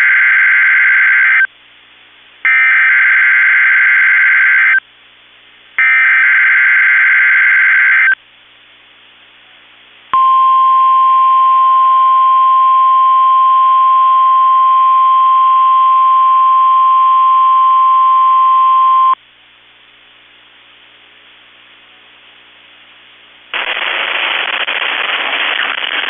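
NOAA Weather Radio Emergency Alert System test: three identical buzzy SAME digital header bursts, then the steady 1050 Hz weather radio warning alarm tone held for about nine seconds. A few seconds before the end, a stretch of static hiss comes in.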